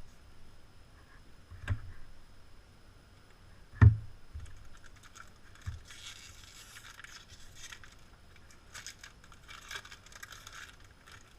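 Two knocks on a tabletop, the second louder, then a foil booster pack wrapper crinkling and tearing open for several seconds.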